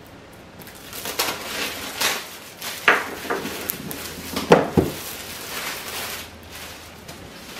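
A cardboard box being unpacked by hand: a knife scraping along the tape and card, a sharp clatter about three seconds in as the knife is put down on the table, then a couple of thuds as the box is lifted out of its sleeve, and packing wrap rustling.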